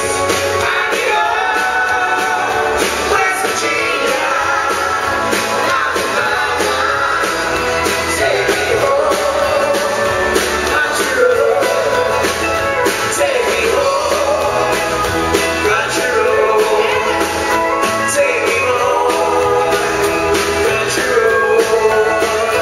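Live band music: a lead singer and several backing singers singing together over acoustic guitar and drums, with a steady beat.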